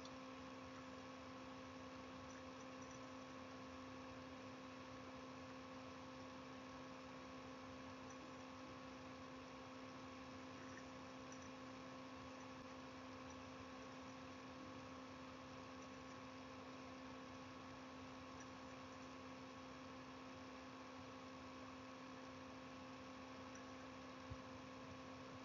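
Faint, steady electrical hum in the recording: a few fixed tones held over a low hiss, unchanging throughout.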